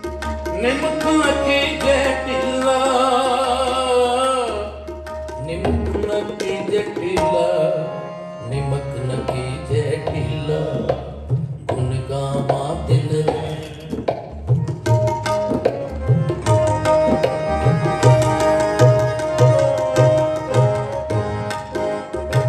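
Instrumental interlude of Sikh kirtan: harmonium playing the melody over a held drone, with tabla. The tabla strokes settle into a steady, busy rhythm from about a third of the way in.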